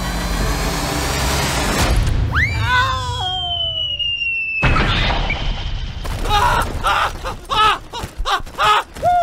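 Cartoon sound effects dubbed over a toy truck tipping over: after a noisy stretch comes a falling, wavering scream-like cry, then a sudden crash and a quick run of short hits and blips, ending in a falling glide.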